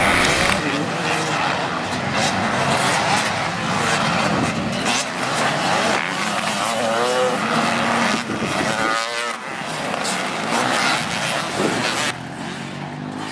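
Several motocross bikes revving hard as they race, their engine notes rising and falling over one another. About twelve seconds in the sound drops to a quieter, steadier engine note.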